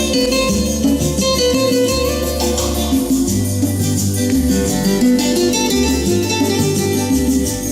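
Recorded guitar music with a plucked melody over a steady, repeating bass line, played back through Technics SB-6 loudspeakers driven by a Sansui AU-D607F Extra amplifier.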